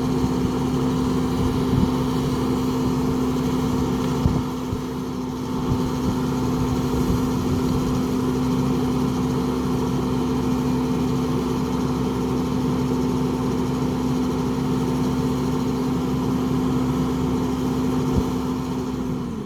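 Stump grinder's engine running steadily as the grinder chews through a stump and the dirt around it, with a few sharp knocks.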